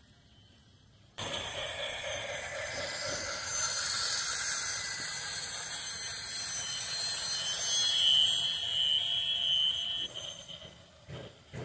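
Toy steam locomotive's electronic steam-hiss sound effect, cutting in suddenly about a second in and running steadily before dying away near the end.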